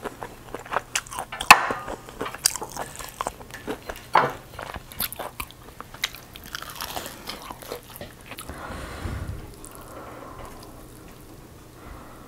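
Close-up mouth sounds of biting and chewing crispy breaded fried chicken, with many crunches of the crust over the first seven seconds or so, quieter after that.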